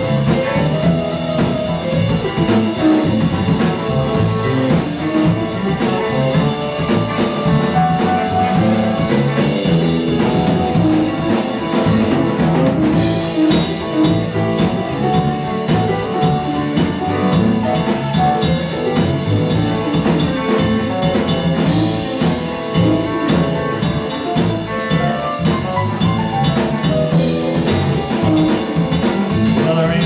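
Live rock band with electric guitars and a drum kit playing a song, loud and steady.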